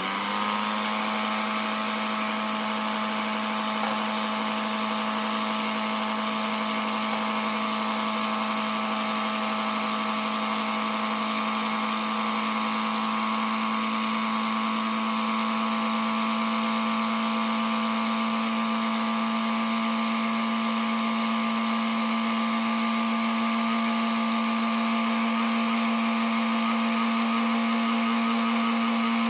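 Electric blender motor starting and running steadily, grinding fenugreek seeds and cloves into a fine powder; its pitch creeps slightly up as it runs.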